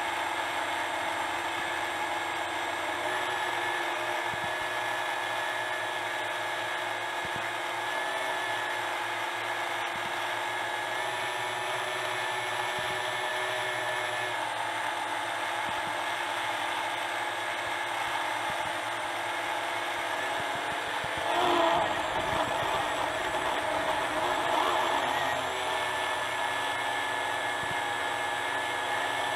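FPV quadcopter's brushless motors and propellers whining steadily in flight, the pitch stepping up and down with throttle. The sound swells louder for a few seconds about three-quarters of the way through.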